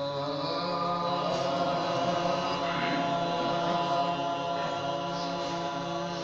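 Group of male voices chanting a Shia noha (Urdu lament) in unison, holding long steady notes without clear words.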